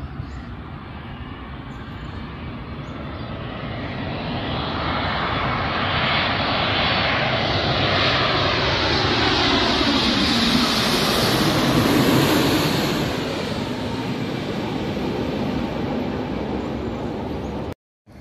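Boeing 787 jet airliner on landing approach passing low overhead: the engine noise swells to a loud, hissing whine and the pitch falls as it goes by, then fades. The sound cuts off abruptly near the end.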